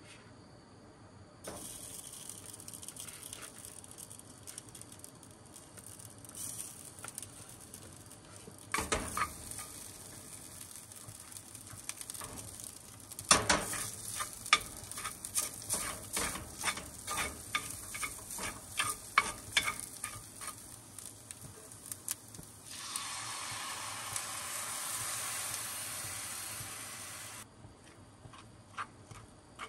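Food sizzling in a frying pan, with a utensil clicking and scraping against the pan many times through the middle. Near the end the sizzle gets louder for about four seconds, then cuts off.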